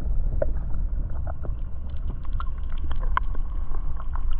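Muffled underwater sound from a camera held below the surface: a low rumble of moving water with scattered small clicks and ticks.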